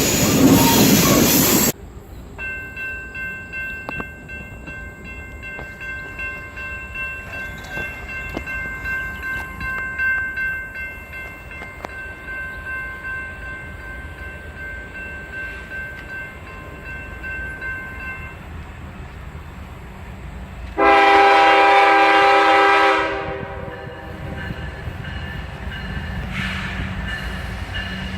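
Loud train-passing noise that cuts off sharply about two seconds in. Then a railroad crossing bell rings steadily with a pulsing beat for about fifteen seconds, and later a locomotive air horn sounds one loud chord blast of about two seconds.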